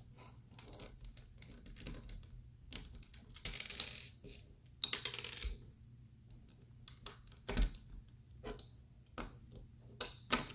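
LEGO plastic bricks and plates clicking and clattering as they are handled and pressed into place, with two longer rattling, rustling stretches partway through.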